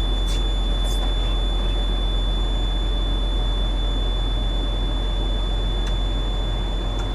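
Truck's diesel engine idling under a steady, unbroken high-pitched alarm tone, traced to the reefer's temperature control unit (TCU) alarm.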